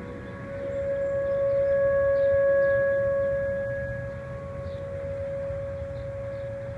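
Distant outdoor tornado warning siren sounding a steady wail during its routine weekly test. The single steady tone swells louder about two seconds in and then fades back down.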